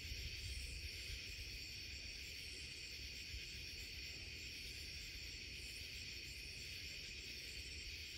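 Faint, steady chorus of night insects, crickets trilling at several high pitches at once, over a low rumble.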